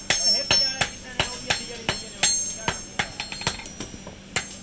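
Hand hammer and sledgehammer blows on red-hot steel on an anvil, forging a garden trowel blank. The blows come about three a second in an uneven rhythm, each with a high metallic ring.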